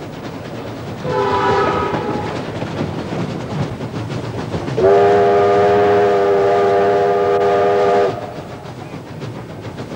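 Whistle of NSW C36 class 4-6-0 steam locomotive 3642 as it sets off: a short chord blast about a second in, then a longer steady blast from about five to eight seconds, over the running noise of the moving train.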